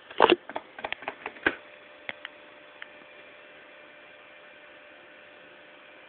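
A quick run of irregular clicks and knocks in the first second and a half, then a few fainter ticks, over a steady faint hiss with a thin hum.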